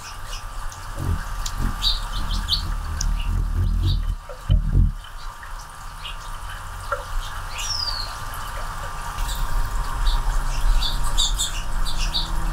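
Anna's hummingbirds feeding right at the microphone: scattered short, high chips and squeaks, with one falling squeal about eight seconds in, over low thumps and rumble.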